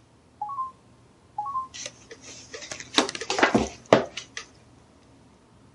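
Two short rising two-note beeps from the Samsung HMX20 camcorder's touchscreen as menu options are tapped, followed by a couple of seconds of handling noise: clicks, knocks and rubbing as the camcorder is moved.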